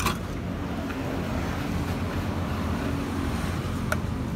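Small gasoline engine running at a steady speed, with a faint click about four seconds in.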